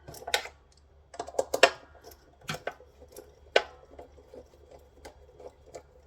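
Irregular clicks and light knocks of solar inverter parts being handled during disassembly, with a quick cluster of small clatters and a few sharper knocks.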